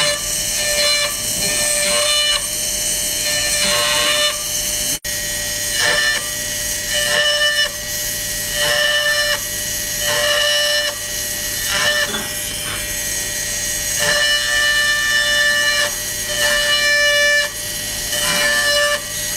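Pen-style electric micro grinder whining steadily, its sound swelling and falling back every second or two as the fine bit works into a phone's speaker grille holes.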